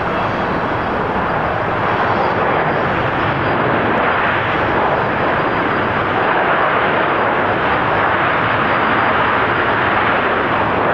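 Airbus A350-900's Rolls-Royce Trent XWB jet engines during the landing rollout, a loud steady jet roar that swells slightly about two seconds in and then holds.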